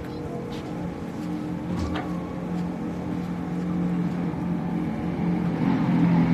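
A NASCAR Cup car's V8 engine running at speed on the track, its steady note growing louder as the car approaches.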